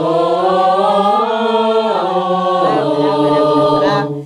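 Mixed a cappella choir of young men and women singing held chords on a single vowel, the chord shifting about one and two seconds in, then stopping together near the end.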